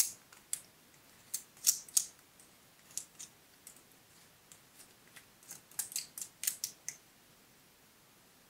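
A wooden stick clicking and scratching against the stiff scales of a pine cone as glitter glue is worked in between them. It comes as several short runs of crisp ticks and falls quiet near the end.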